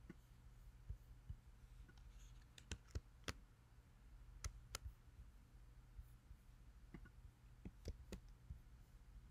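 Faint, sparse clicks from a computer mouse and keyboard over a low steady hum. The clicks come in small groups: three in quick succession about a third of the way in, a pair about halfway, and a pair near the end.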